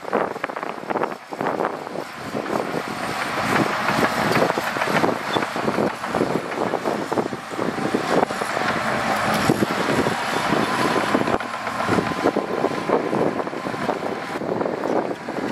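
Heavy earthmoving machinery working, a diesel engine running with a dense, irregular rattle and clatter throughout.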